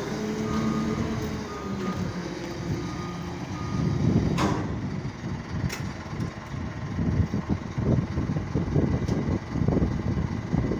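Liebherr reach stacker's diesel engine running, with its reversing alarm beeping over it for the first few seconds. Two sharp knocks come about four and six seconds in, followed by irregular low rumbling.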